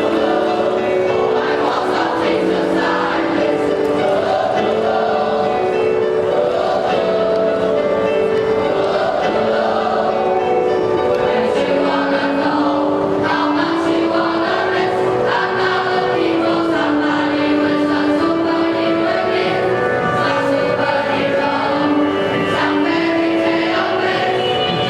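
A class choir singing together, holding long notes that step up and down in pitch.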